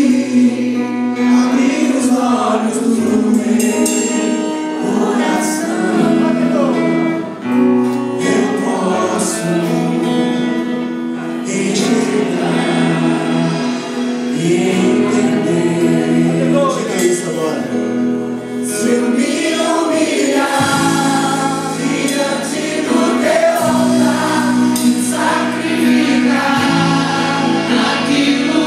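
Gospel worship music: a group of singers with instrumental backing, sustained chords and a bass line under the bending melody of the voices.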